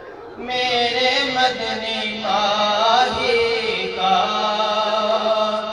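A man singing a naat, an Urdu devotional song in praise of the Prophet, in a drawn-out, wavering chant melody that starts about half a second in. A steady low hum runs underneath.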